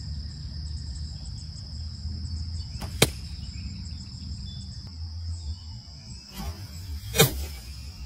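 A 40-pound Fishhawk compound bow shot heard from about 20 yards downrange: a single sharp snap about three seconds in, and another short crack about seven seconds in, over a steady high insect buzz.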